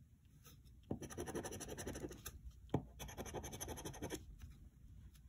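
A large coin scraping the coating off a paper scratch-off lottery ticket in two bouts of rapid strokes, with a sharp click between them.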